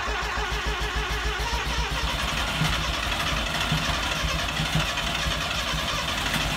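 Mazda rotary engine in a 323 idling steadily with a fast, even low pulse, just after a cold start. It started almost at once now that its ECU keeps power while cranking.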